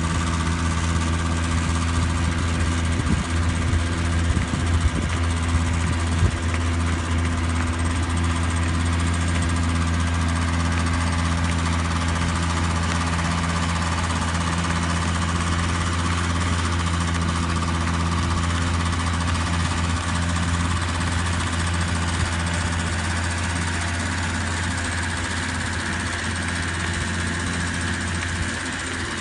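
Small engine of a student-built Shell eco-car running steadily at an even speed as the car drives, a constant low hum.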